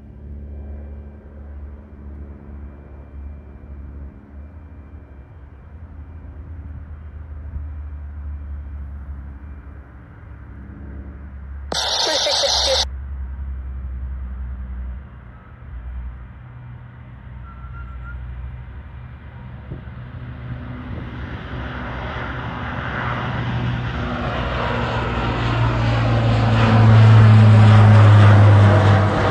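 Lockheed C-130 Hercules's four turboprop engines at takeoff power on the takeoff run and climb-out: a low drone that grows steadily louder, loudest near the end as the aircraft passes overhead. About twelve seconds in, a brief loud burst of noise lasts about a second.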